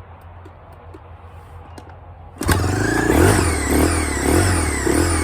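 Husaberg FE 450 four-stroke single-cylinder dirt bike engine catching on a cold start with the choke pulled out: quiet at first, then about two and a half seconds in it fires and keeps running, its revs rising and falling.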